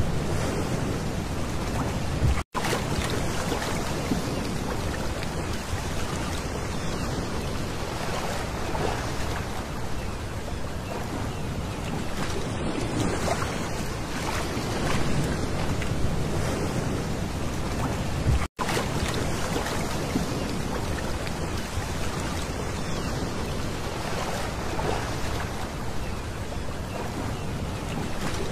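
Small waves washing up and drawing back over a pebble beach, a steady wash with a gentle swell every few seconds. The sound cuts out for an instant twice, about two and a half seconds in and again about two-thirds of the way through.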